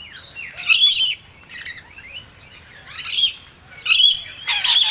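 Rainbow lorikeets and noisy miners calling at a feeding spot: about five short, harsh, high calls in quick succession.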